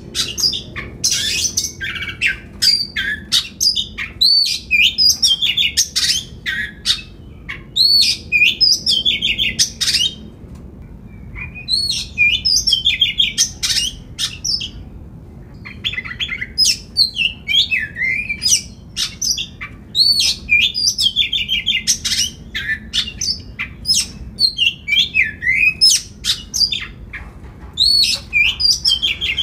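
Oriental magpie-robin singing a varied song of rapid whistled notes mixed with sharp clicks, in long bursts broken by a couple of short pauses about halfway through.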